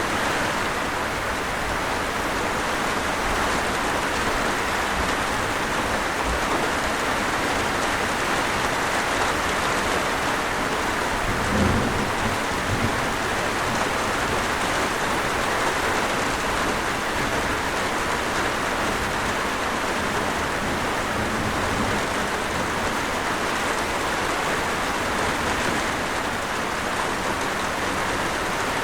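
Steady rain pouring down, with a brief low rumble of thunder about twelve seconds in.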